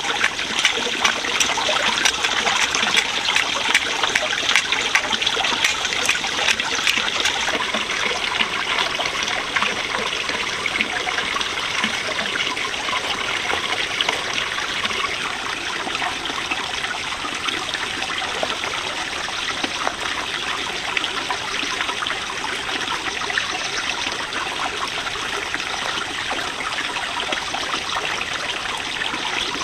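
Running water trickling and splashing steadily, with more splashing in the first several seconds.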